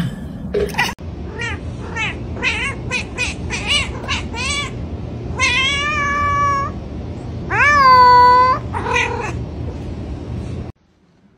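A tabby cat meowing over and over: a quick run of short meows, then two long, drawn-out meows about two seconds apart and one shorter one, stopping abruptly near the end.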